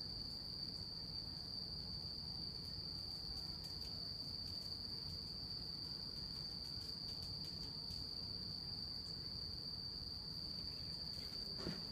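Crickets trilling steadily at night, one unbroken high-pitched note, over a low background rumble.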